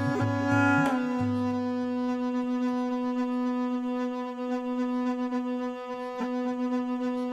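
Been, the gourd pipe, playing: a steady reedy drone under the melody, a few quick notes in the first second, then a long held note. A barrel drum thumps under the opening notes and then taps lightly only now and then.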